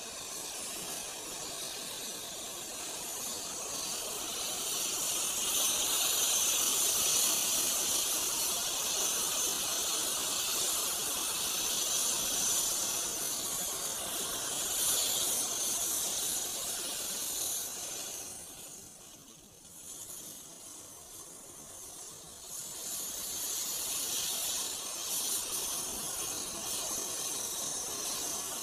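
Thousands of match heads on a matchstick model tractor flaring one after another in a chain reaction, a continuous hiss of igniting matches. It dies down for a few seconds about two-thirds through, then picks up again as more heads catch.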